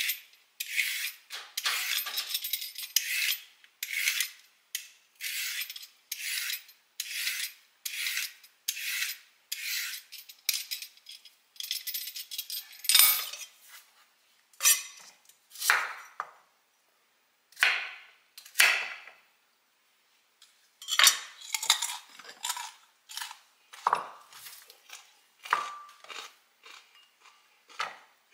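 Y-shaped vegetable peeler scraping down a raw carrot in quick repeated strokes, about one and a half a second. About halfway through the strokes turn slower and louder: scattered scrapes and knocks of a knife on the carrot and a wooden cutting board.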